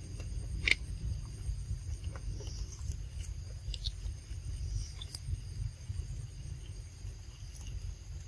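Insects chirring in several steady high tones over a low rumble, with scattered small clicks and ticks; the sharpest click comes just under a second in.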